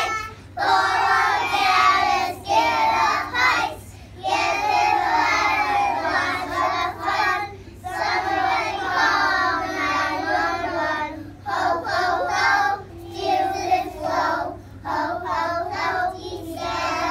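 A group of young preschool children singing a song together in unison, in sung lines of a few seconds each with short breaths between them.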